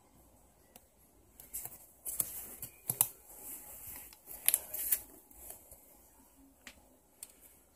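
Kittens scrabbling in a cardboard box lined with newspaper: irregular scratching, crackling and paper rustles, busiest between about two and five seconds in.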